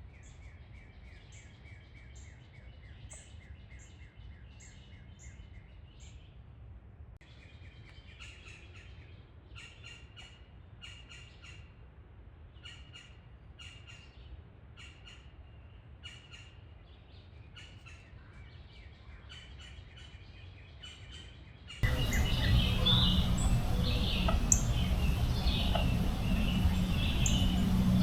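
Wild songbirds chirping and singing, with many short high calls and trilled phrases. About 22 seconds in the sound cuts abruptly to a louder, noisier recording with a steady low hum under more bird calls.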